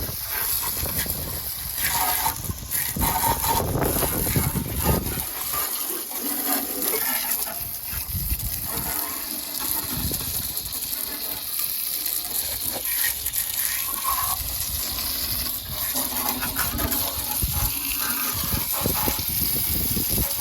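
Water spraying steadily from a hose, splashing as it rinses down the removed air-cooled VW bus engine.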